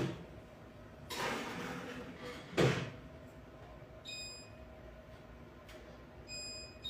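A baking pan slid into an oven and the oven door shut with a sharp knock, followed by two short electronic beeps as a 10-minute timer is set.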